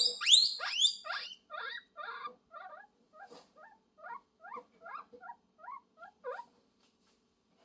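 Guinea pig squealing: two loud, high-pitched calls that swoop up and down, then a run of shorter, quieter squeaks, about three a second, that stop about a second before the end.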